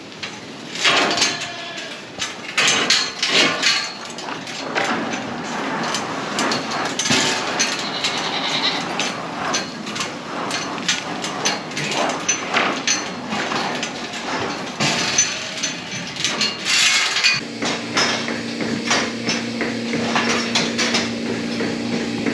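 Goats being handled in a barn pen: repeated knocks and clatter of hooves and bodies against the pen. About three-quarters of the way in, a steady electrical hum starts and keeps going.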